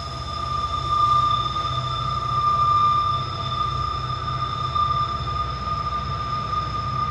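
Norfolk Southern diesel locomotives hauling a loaded coal train across a steel truss bridge: a steady low engine rumble, with a steady high-pitched squeal above it.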